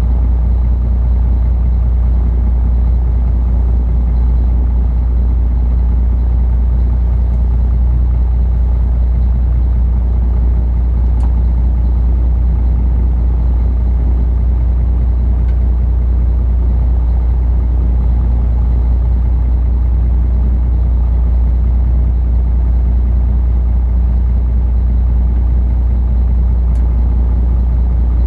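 Inland cargo ship's diesel engine running steadily under way, a constant low drone.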